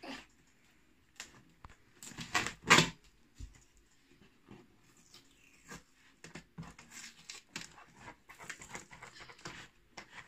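Scissors cutting and scraping at packing tape on a cardboard box, with the cardboard rustling and creaking as it is handled. The loudest is a crunchy burst about two and a half seconds in; later comes a run of quick scratchy strokes.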